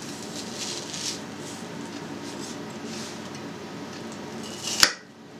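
Kitchen knife peeling and cutting an onion: light scraping and rustling, then one sharp knock of the blade striking the cutting board near the end.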